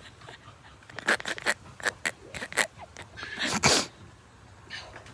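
A person drinking from a plastic water bottle: a quick run of short clicks and crackles, then a louder breathy burst about three and a half seconds in.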